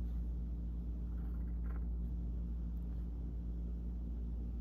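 Steady low background hum of the room, with a few faint steady tones in it and one faint brief sound about a second and a half in.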